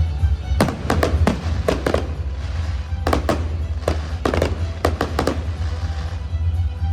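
Fireworks bursting in quick clusters of sharp bangs, about one cluster a second, over loud music with a heavy steady bass.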